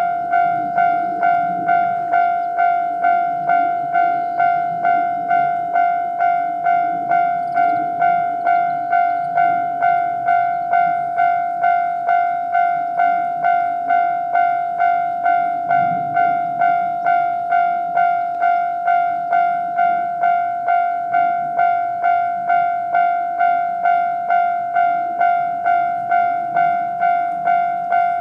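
Japanese railway level-crossing alarm ringing: an electronic bell tone struck over and over at an even, unbroken pace, the standard warning that a train is approaching.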